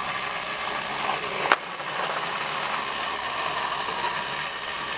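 Clockwork wind-up mechanism of an antique coffin bank running with a steady whirr as it works the skeleton hand that grabs the coin, with one sharp click about one and a half seconds in.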